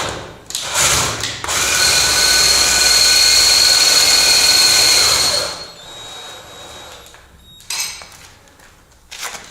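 Cordless drill-driver spinning the height adjuster of a threaded-anchor floor joist: a short burst, then about four seconds of steady running with a high whine, stopping about five and a half seconds in. One more brief burst comes near the end.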